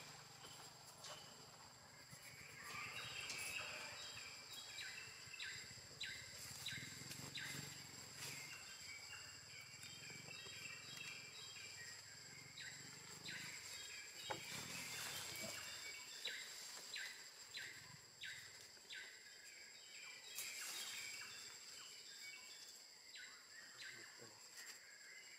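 Insects buzzing steadily at a high pitch, with many short, repeated bird chirps and scattered small clicks over them.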